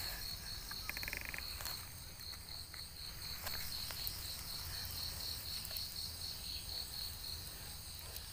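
Insect chirping steadily in an even, rapid high pulse, about four to five chirps a second, with a brief fast rattle about a second in. Faint clicks and rustles come from hands picking straw mushrooms out of rotting oil palm waste.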